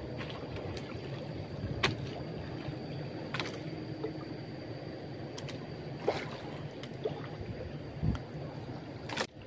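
Sea water lapping and splashing against the hull of a small fishing boat as it rocks on the swell. A few light knocks and clicks of gear against the boat come through it.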